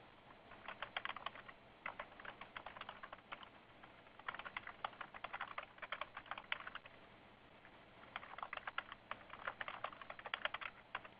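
Typing on a computer keyboard: rapid keystrokes in three bursts with short pauses between them.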